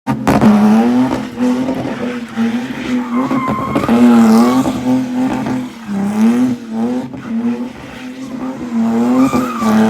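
BMW E46 engine held at high revs while the car drifts, its pitch wavering up and down with throttle, with tyres squealing.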